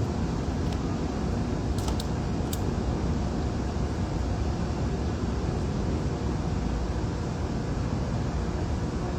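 Steady rumbling background noise, with a few faint clicks about two seconds in.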